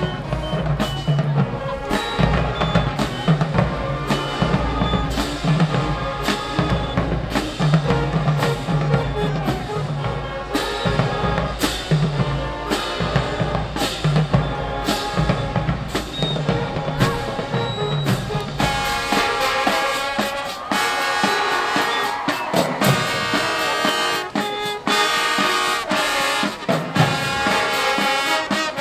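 Marching band playing its field show: a steady drum beat with bass drums under the brass. About eighteen seconds in, the deep drum and bass sound drops out and the brass section carries on with full, sustained chords.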